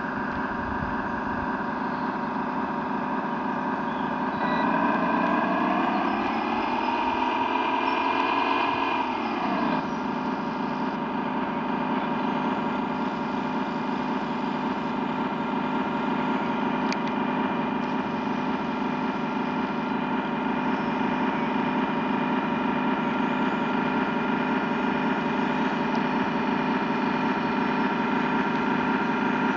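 Engine sound of an RC model push convoy idling steadily, revving up about four seconds in and dropping back to idle about ten seconds in.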